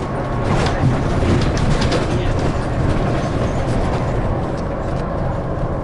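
Scania CN280UB city bus running, with a steady low engine and road rumble and light rattles and clicks that are thickest in the first couple of seconds.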